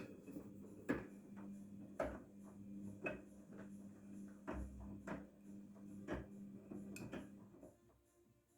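Daewoo DWD-FT1013 washing machine turning its drum in a cotton wash: a faint steady motor hum with a knock about once a second, until the drum stops near the end.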